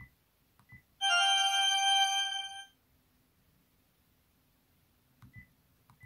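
Built-in opening-flip sound effect of a Sharp SH900i flip phone, the 'OP (Classic)' tone, played through the handset's speaker: a short, bright chime of several held electronic tones lasting under two seconds. A couple of soft keypad clicks come just before it, and another near the end.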